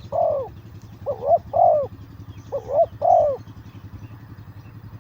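Spotted dove cooing: three phrases about a second and a half apart, each a quick double note followed by a longer drawn note, over a steady low hum.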